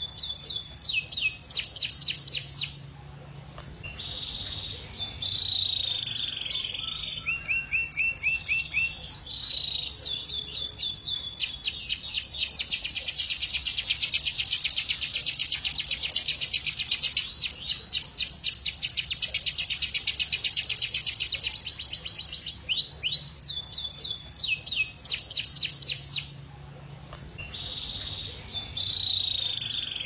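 Domestic canary singing a long song of rapid, evenly repeated high notes and trilled rolls, with one long continuous fast roll through the middle. The song breaks off briefly twice, about three seconds in and near the end.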